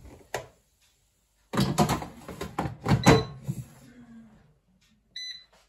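Cosori air fryer basket sliding into the machine with a scrape and shutting with a clunk about three seconds in, followed near the end by a short electronic beep from the air fryer's control panel.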